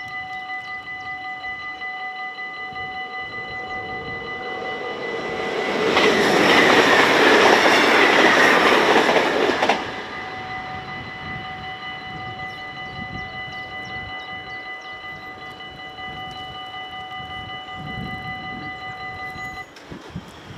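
Level-crossing warning bells ringing steadily while a train rushes through the crossing from about five seconds in, ending abruptly about ten seconds in. The bells stop shortly before the end, as the barriers go up.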